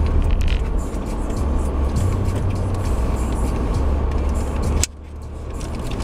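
Steady low rumble of road and engine noise inside a car's cabin. It drops off abruptly near the end and swells back up.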